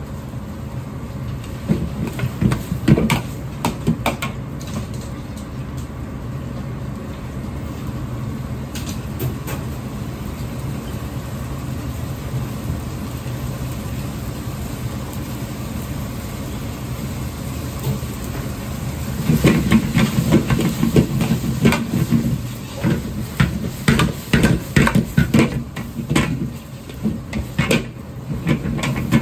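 Stir-frying in a wok over a high gas flame: the burner runs with a steady roar while the fried rice sizzles, and a metal ladle and turner scrape and clank against the wok. The clatter is busy in the first few seconds, eases off in the middle, and picks up hard again from about two-thirds of the way through as the rice is tossed.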